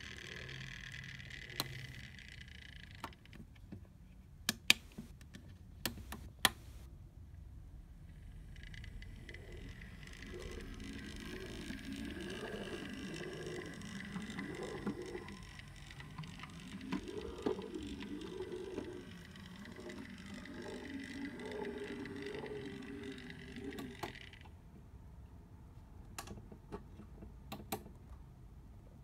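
Small electric motor of an HO-scale brass model railcar, whining steadily as it runs on the track, with a wavering lower hum that rises and falls and scattered sharp clicks. The owner says the railcar is running badly and noisily here. The whine cuts off near the end.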